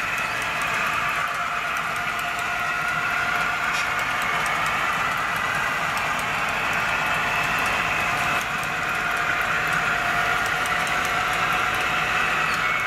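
HO scale model diesel locomotives running with a freight train, giving a steady engine drone with faint ticking from the track.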